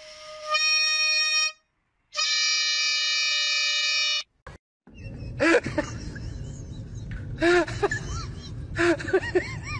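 A plastic two-tube stadium horn held in a golden retriever's mouth sounds twice as a steady tone: a short blast of about a second, then a louder one of about two seconds. After a brief gap come a cat's short rising-and-falling meows, several in a row.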